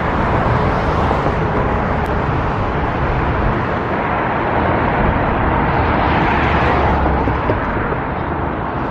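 Road traffic passing close by: a steady wash of tyre and engine noise that swells twice.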